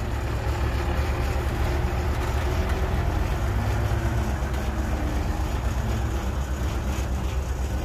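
Heavy diesel engines running steadily as a loaded dump truck pulls away from the excavator that filled it.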